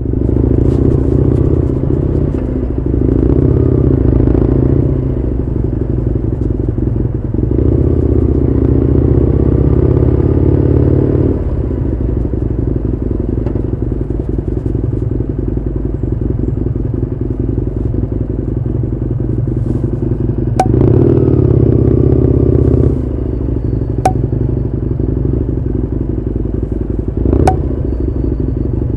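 Husqvarna Nuda 900R's parallel-twin engine running under way, heard from on the bike, with the throttle opened and eased off several times. Three sharp clicks sound in the second half.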